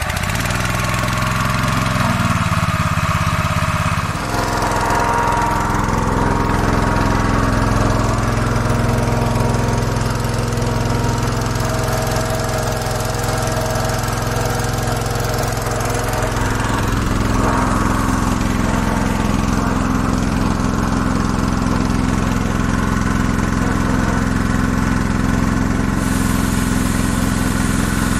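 Small petrol engine of a Dayliff mobile fire-fighting pump, freshly pull-started and running steadily as it drives the pump. Its note shifts about four seconds in, then holds steady.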